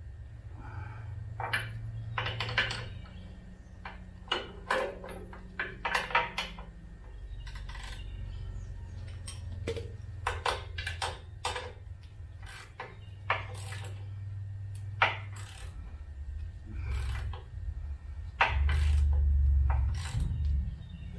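Scattered metallic clinks and taps of steel bolts, nuts and a socket wrench as hitch hardware is fitted by hand to a tractor's drawbar mount, over a steady low hum that swells near the end.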